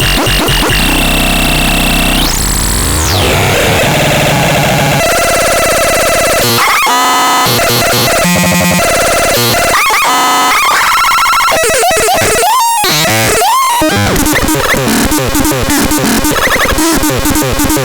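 Electronic synthesizer making harsh, noisy tones. It runs through pitch sweeps, fast pulsing and warbling patterns and bursts of noise, with abrupt changes every second or two, and one tone sweeps sharply upward about two seconds in.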